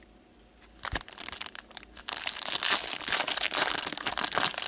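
Foil wrapper of a trading card pack being torn open and crinkled by hand. It starts about a second in and is loudest and densest in the second half.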